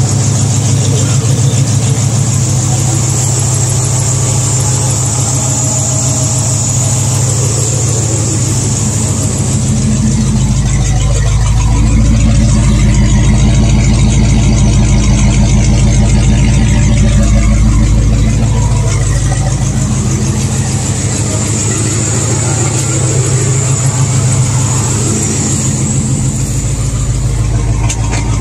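International Harvester 345 V8 idling steadily and smoothly, warmed to near operating temperature. Its low exhaust rumble grows heavier for several seconds in the middle.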